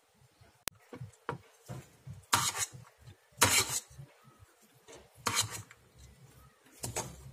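A metal spoon scrapes and knocks against a metal pot as cooked biryani rice is tossed and mixed. The strokes are irregular, with a sharp click about a second in and several louder scrapes after that.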